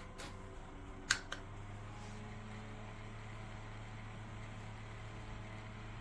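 Small USB desk fan running with a steady hum, with two sharp clicks about a second in.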